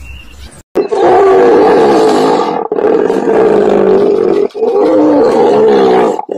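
Hippopotamus calling: loud, drawn-out calls with a wavering pitch, starting about a second in. They come in runs of about two seconds with brief breaks between them.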